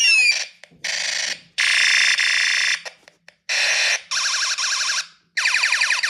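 Electronic space-battle sound effects from an electro snaps circuit kit's sound-effects chip through its small speaker: a pair of crossing pitch sweeps, then several bursts of loud hiss, a fast pulsing buzz, and a quick run of falling laser-like zaps near the end.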